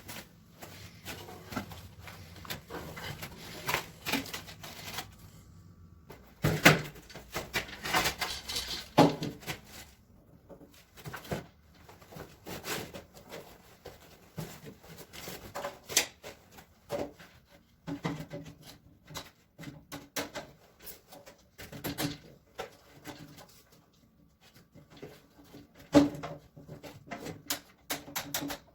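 Irregular knocks, clicks and clatter of objects being handled and set down, with a few louder knocks.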